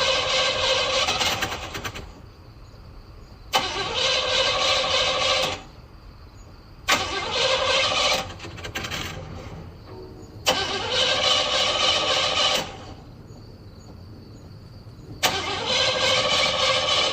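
A car's starter motor cranking the engine in repeated tries of about two seconds each, every try starting with a sharp click, with short pauses between. The engine fails to catch.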